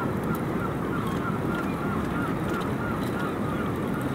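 Fishing reel being wound in against a fish on the line, giving a small rhythmic squeak about three times a second.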